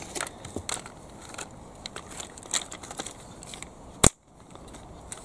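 Light clicks and creaks of a plastic toy tractor's body and parts being handled and pressed together, with one sharp, loud click about four seconds in.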